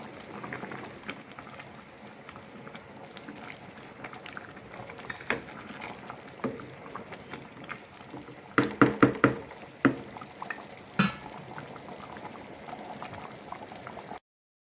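A pot of liquid bubbling on the boil, with scattered clicks and knocks: a quick run of them about nine seconds in and another near eleven seconds. The sound cuts off shortly before the end.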